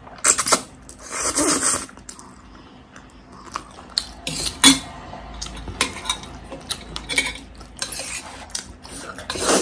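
Spicy instant noodles being slurped in two noisy rushes in the first two seconds, then chewing and a fork and spoon clinking and scraping on a steel plate in many short clicks.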